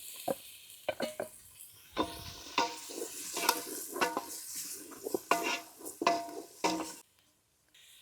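A spoon stirring and scraping food in a metal cooking pot, knocking and ringing against its sides over a steady sizzle; the sound breaks off briefly near the end.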